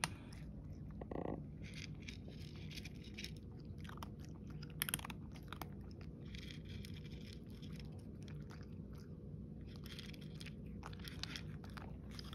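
Cat eating dry kibble, with irregular crunches and clicks as it chews, over a low steady hum.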